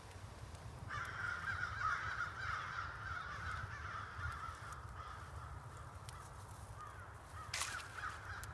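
Breath blown steadily into a smouldering bundle of dry pine needles to coax it into flame: a long, rough breathy rush starting about a second in. A sharp knock comes near the end.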